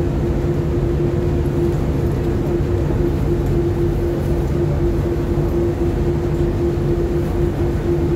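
Ship's engine under way, a loud steady drone with a constant hum, heard from the stern deck of the KM Sabuk Nusantara 101, with a rumble of wind and wake beneath it.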